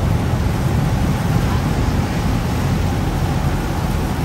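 Steady low rumble and rushing noise of a Thames Clipper riverboat under way.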